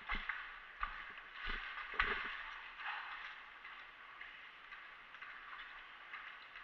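Footsteps crunching and gear rustling as a player walks, with a few dull knocks in the first two seconds, then quieter.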